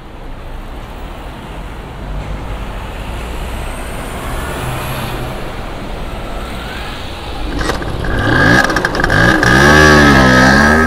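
Street traffic ambience, then a motor scooter engine sound effect: a few clicks about seven and a half seconds in, then the engine revs, its pitch rising and swinging up and down, loudest near the end, with a steady high tone over it.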